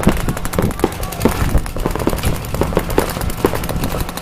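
A rapid, irregular series of sharp cracks and pops, several a second, over a steady low hum.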